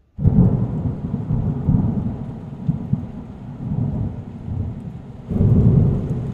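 Thunderstorm: rumbling thunder over steady rain, starting abruptly, with a louder rumble swelling about five seconds in.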